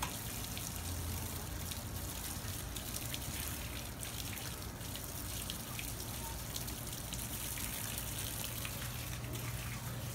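Water running steadily from a garden hose and splashing while freshly plucked chickens are rinsed.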